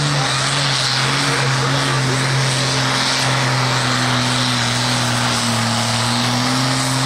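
International Harvester pulling tractor's diesel engine running flat out under full load as it drags the weight sled down the track, holding a steady high pitch.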